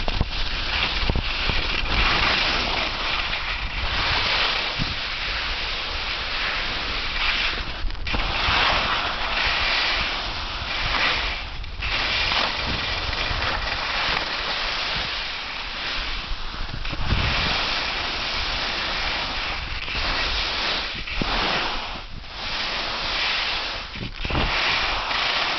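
Skis hissing and scraping over packed snow on a downhill run, surging and easing every second or two, with wind rushing over the microphone.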